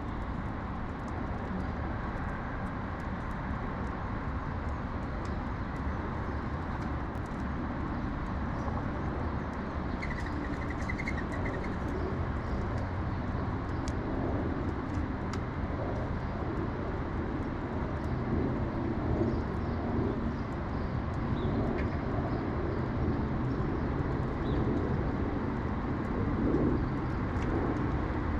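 Mourning doves cooing, low soft calls repeating through the second half, over a steady rumble of city traffic. A small bird gives a brief high trill about a third of the way in.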